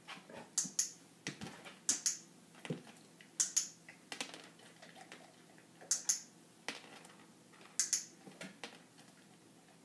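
Dog-training clicker clicked five times, each a quick double snap, with one to two seconds between clicks: marking the dog's correct behaviour for a reward. Softer low knocks come in between.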